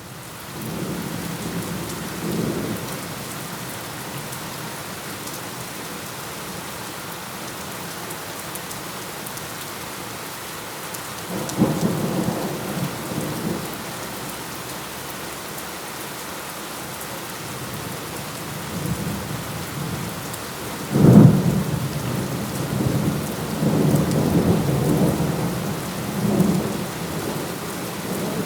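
Thunderstorm: steady rain with rolling thunder. Low rumbles come about a second in and again around twelve seconds, then a sharp, loud thunderclap about twenty-one seconds in rolls on for several seconds.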